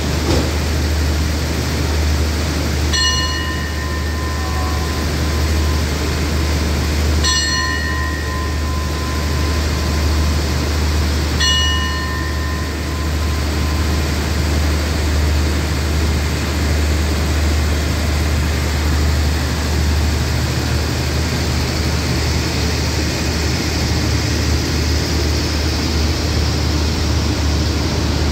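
A station bell struck three times, about four seconds apart, each ring lingering, the signal for the train's departure, over the steady low rumble of a diesel-hauled express train. In the second half the train pulls away, a rising rushing hiss joining the rumble.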